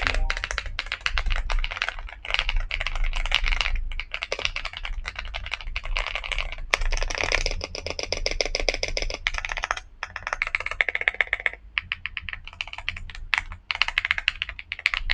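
Lingbao K98 mechanical keyboard being typed on: a fast, continuous stream of key clacks. Between about seven and nine seconds in there is a run of very rapid, evenly spaced clicks.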